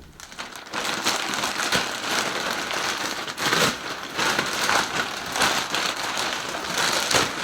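Plastic packaging crinkling and rustling as it is handled and torn open, with a dense run of irregular crackles.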